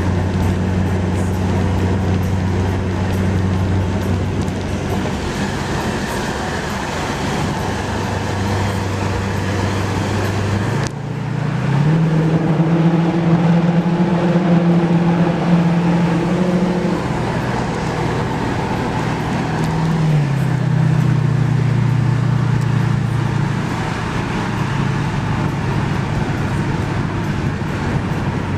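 Cougar car's engine running steadily at a low, even pitch, then stepping up to a higher held speed about a third of the way in and settling back to a middle speed a few seconds later.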